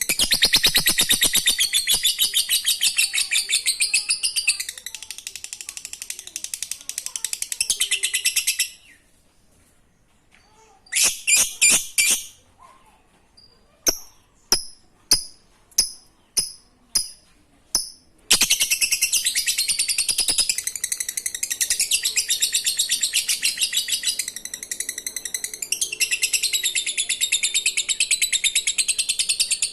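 Lovebird (Agapornis) giving its long 'ngekek' chattering trill: very fast runs of sharp, high notes lasting several seconds at a time. The first run breaks off about nine seconds in, followed by a couple of short bursts and a string of single chirps, then another long trill from about eighteen seconds on.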